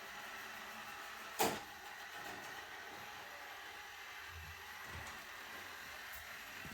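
Roomba robot vacuum running with a steady whir, with one sharp knock about a second and a half in.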